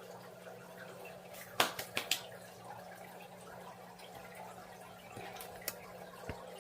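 Light handling clicks and taps, three sharp ones close together about a second and a half in, over a steady low hum.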